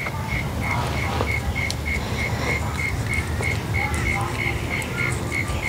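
An evenly repeating high chirp, about three a second at one steady pitch, over a low rumble.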